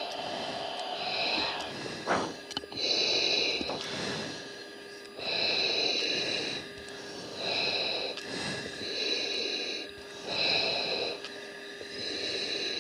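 Breathing through a fighter pilot's oxygen mask, picked up by the mask microphone on the cockpit intercom. About eight hissing breaths come in an even rhythm, one every second or two, over a steady faint hum.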